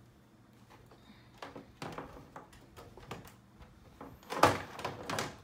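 Plastic back cover of a 65-inch flat-screen TV being lowered onto the chassis and pressed into place: scattered knocks and clicks, then a louder knock and about a second of clattering and scraping a little over four seconds in.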